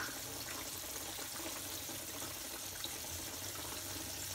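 Metal tongs clicking against a plate and pan while onion rings and sauce are spread over fried fish: one sharp click at the start, then a few light taps over a steady hiss.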